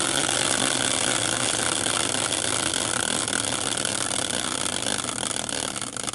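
Prize wheel spinning, its pointer clicking rapidly against the pegs. The clicks slow and spread out near the end as the wheel comes to rest.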